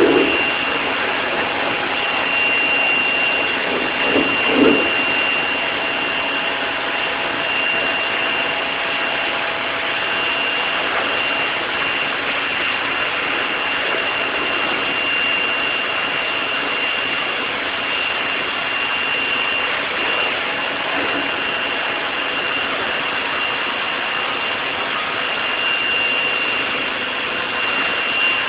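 Pressure washer running steadily, its jet spraying onto denim jeans on concrete: a constant hiss with a thin steady high tone, louder for a moment near the start and again about four seconds in.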